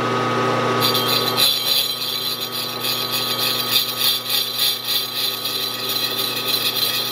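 Milling machine spinning a slotting cutter in reverse, with a steady motor hum; about a second in the cutter bites into a soft brass part and a loud rasping cutting noise sets in and continues. The cut goes through even with the cutter running backwards because the brass is soft.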